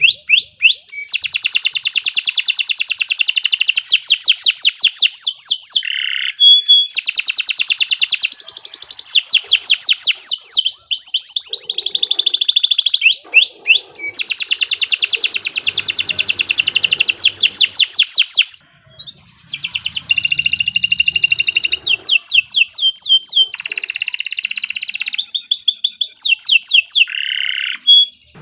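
Domestic canary singing long phrases of fast-repeated high notes and trills, pausing briefly about two-thirds of the way through before carrying on.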